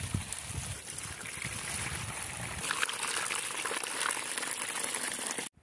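Water running from a stream into a red plastic basin, splashing in it; the sound cuts off suddenly near the end.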